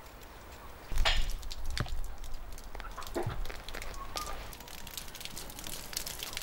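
Wood fire crackling: a dense run of small sharp pops and snaps that starts abruptly about a second in, with a few louder snaps.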